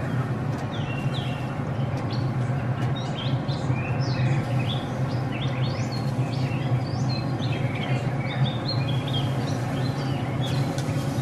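Several songbirds chirping, with many short calls one after another, over a steady low hum.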